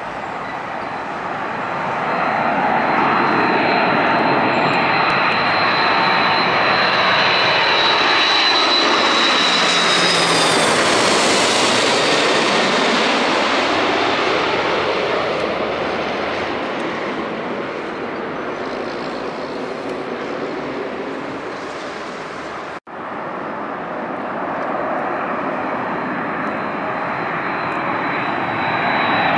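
Airbus A330-300 airliner with GE CF6-80E1 turbofans passing low overhead on final approach with its gear down: loud jet engine noise builds with a high fan whine, the whine drops in pitch as the plane passes, and then the noise fades. About 23 seconds in the sound cuts out abruptly to a second A330 approaching, whose engine noise and high whine build again near the end.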